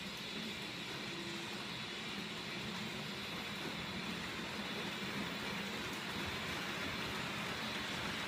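An H0 model train running on the layout's track out of sight, a steady rumble and hiss with a low hum that slowly grows louder as it approaches.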